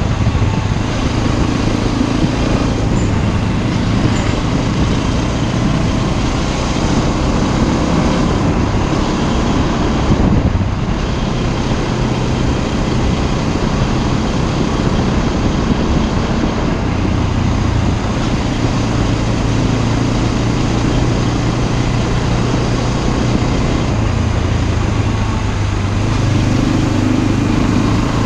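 Motorcycle engine running steadily while riding, over a constant rush of road and wind noise; the engine note shifts slightly a few times as the throttle changes.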